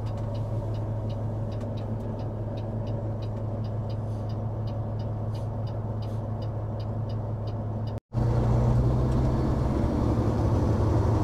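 2011 Peterbilt 389's Caterpillar C15 diesel idling steadily, heard from inside the cab, with a light ticking repeating about two to three times a second. About eight seconds in, after a short break, the engine runs louder and fuller with the truck under way.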